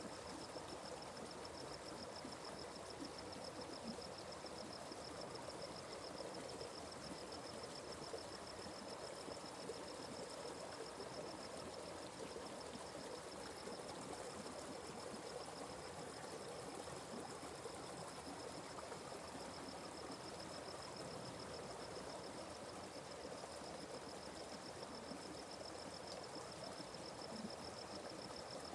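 Atlantic Forest stream flowing steadily, a soft even rush of water. A steady, high, finely pulsing trill runs over it.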